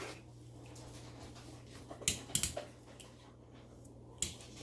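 A few light clicks from a retractable charging cable being handled and pulled out, two close together about two seconds in and one more near the end, over a steady low hum.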